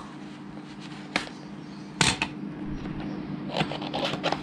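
Snap-off utility knife cutting the seal on a white paperboard box: a light click about a second in, a sharp slicing cut about two seconds in, then light rustling and scraping as the box is handled near the end.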